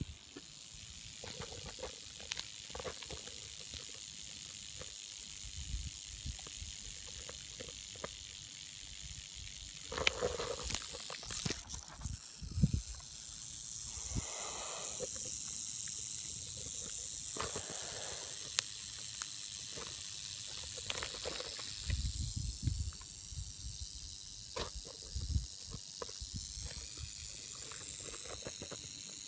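Rattlesnake rattling its tail: a continuous high, steady buzz, the warning of a coiled, alarmed snake. A few knocks about ten to thirteen seconds in.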